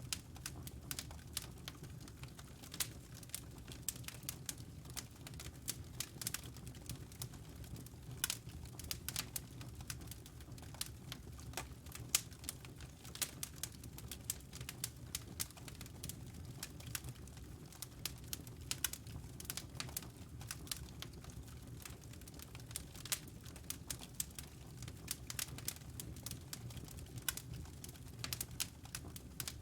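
Wood fire in a fireplace burning steadily with a low rumble and many sharp, irregular crackles and pops.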